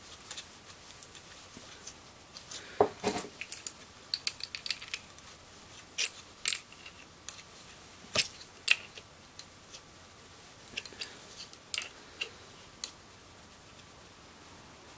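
Light metallic clicks and clinks as brass pipe fittings and an adjustable wrench are handled. The taps are scattered and uneven, with a few louder single clinks.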